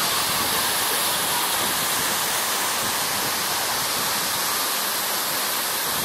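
Waterfall pouring down a rock face into a gorge: a steady, even rush of falling water, heavy in hiss.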